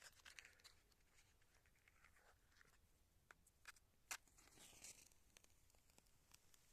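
Near silence with a few faint, sharp clicks and light rustling from hands working to light a bonfire; the loudest click comes about four seconds in.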